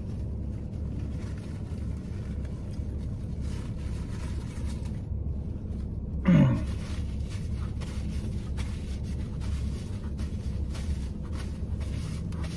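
Steady low hum inside a parked car's cabin, with paper napkins rustling and crinkling as hands are wiped. About six seconds in there is one short hum from the man that slides down in pitch.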